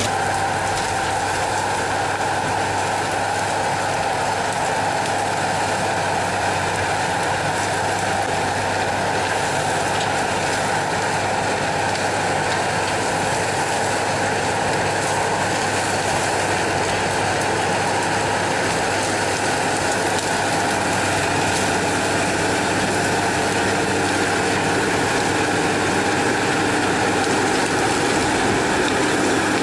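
Heavy machinery running steadily, a continuous mechanical noise with a few steady tones over it.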